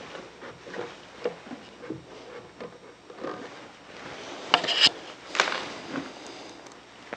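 Upside-down wooden chair frame being shifted and squared on its wooden seat board: light wooden knocks and rubbing, with a few sharper clicks about four and a half to five and a half seconds in.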